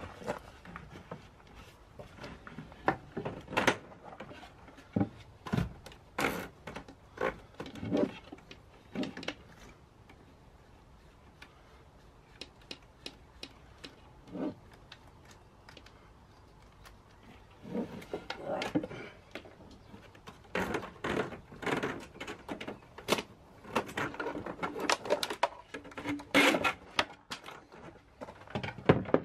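Scattered knocks, clicks and rattles of hands at work: a loose plywood panel being handled and cables pulled about inside a wooden box. The knocking eases off for several seconds in the middle and comes thick and fast again near the end.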